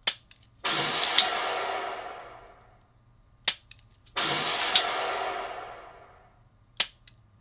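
A pistol's trigger clicking on dry fire three times, about three and a half seconds apart. The first two clicks are each answered about half a second later by a recorded gunshot sound effect from the laser-training software, which has registered the shot. Each effect has a long echoing tail that fades over about two seconds.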